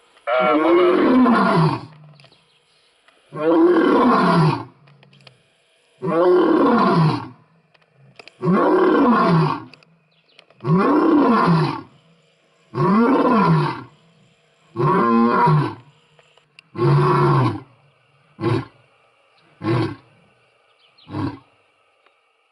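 Male African lion roaring: eight long roars every two to three seconds, each rising then falling in pitch. The bout tapers into three short grunts near the end, the usual close of a lion's roaring bout.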